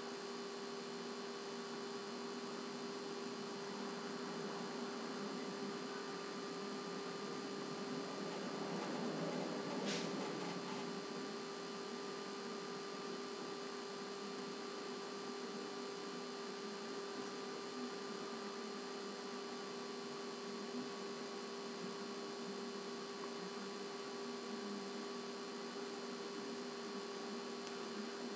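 Steady electrical hum and hiss made of several held tones. About ten seconds in there is a brief soft rustle and a single sharp click.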